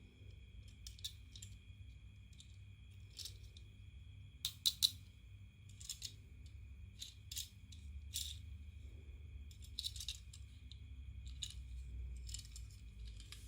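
Scattered light clicks and small rattles of a boxed 1:64 diecast model car and its packaging being handled and opened, loudest in a quick cluster about five seconds in, over a faint steady high whine.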